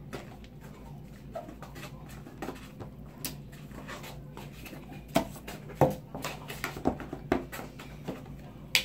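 Slime of glue and shaving cream being stirred in cups: a plastic spoon scraping and tapping in a foam cup, with wet squelching and irregular clicks. The knocks get sharper and louder in the second half.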